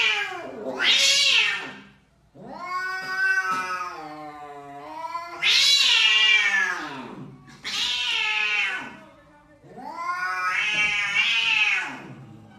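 Angry domestic cat yowling, a string of about six long, wavering cries with short breaks between them.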